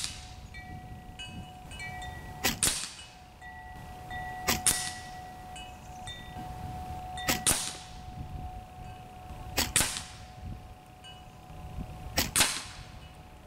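AEA Precision SF Standard .22 PCP air rifle firing in semi-auto: five shots about two to three seconds apart, each a quick double crack with a short ring after it.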